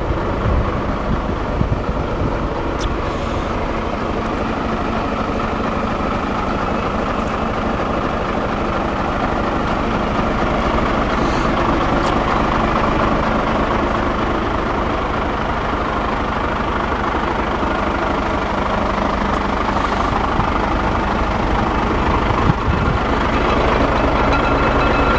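Nissan Diesel CK482 tractor unit's diesel engine idling steadily.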